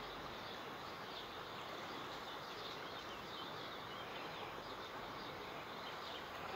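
Small birds chirping here and there, short high calls over a steady outdoor background hiss.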